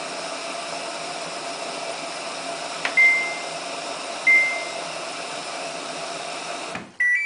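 Samsung WF8804RPA washing machine's control panel beeping in service mode, the 'ding' of pressing test before it is ready: a button click and a single high beep about three seconds in, then another beep over a second later, over a steady electrical hum. Near the end the hum cuts off suddenly and a short run of beeps at different pitches begins as the machine is reset.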